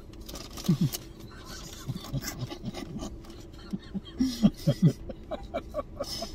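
Two men laughing quietly in short, scattered bursts.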